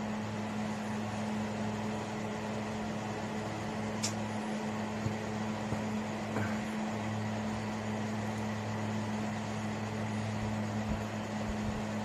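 KANAZAWA electric tower fan running: a steady rush of air over a constant low motor hum, with a light click about four seconds in.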